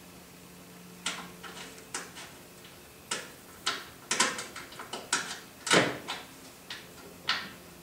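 Irregular metallic clicks and knocks of brake parts being handled as the flexible brake hose and its spring clip are fitted at the front caliper, about a dozen over six seconds, the loudest about three-quarters of the way through.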